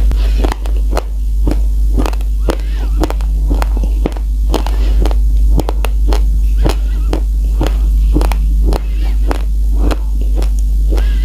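Raw uncooked rice being crunched and chewed: an irregular run of sharp crunches, a few a second, over a constant low hum.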